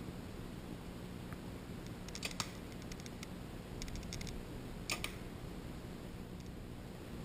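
Two compound bows shot one after the other, each release a sharp snap: the first about two seconds in, the second about five seconds in, with faint ticks between.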